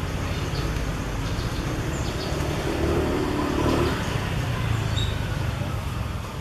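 Steady low rumble of a motor vehicle engine, swelling about three to four seconds in as it passes, with a few faint short high chirps.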